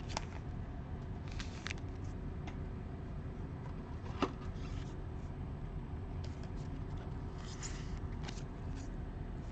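Light rustling and small clicks of a trading card being handled in clear plastic sleeves and a rigid plastic holder, with one sharper click about four seconds in, over a steady low room rumble.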